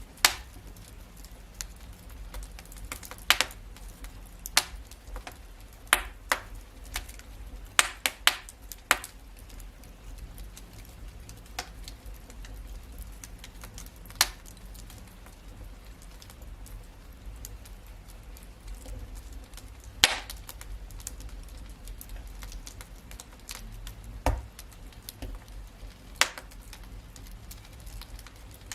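Wood fire in a fireplace crackling: scattered sharp pops, a quick run of them about eight seconds in, over a low steady rumble.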